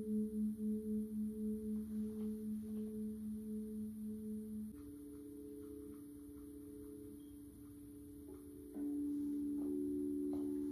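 Now Tone Therapy System sounding a sustained low tone that pulses about two or three times a second, the pulsing fading away. The pitch steps up about halfway through and changes again, louder, near the end, with a few faint clicks.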